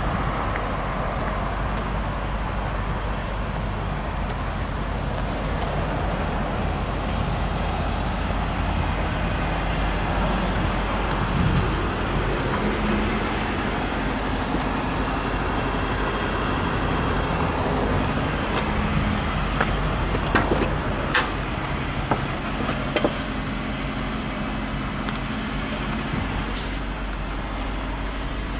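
Steady road traffic noise from a nearby highway, with a few short clicks and knocks in the second half.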